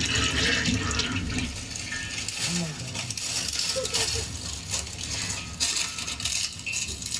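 Wood cooking fire crackling, with dry sticks snapping: many sharp, irregular crackles over a steady hiss.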